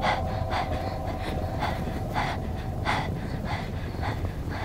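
A girl's quick, rhythmic breathing, about one breath every half second, over a steady low rumble.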